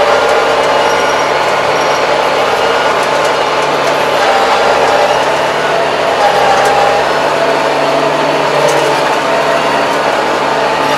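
Tractor engine running steadily under load, heard from inside the cab, as it drives a rotary tiller through tall weeds; its pitch shifts a little past the middle.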